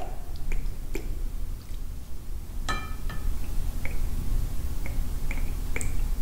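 Kitchen utensils in food preparation: scattered light clicks and taps, with one ringing clink about three seconds in, over a steady low rumble.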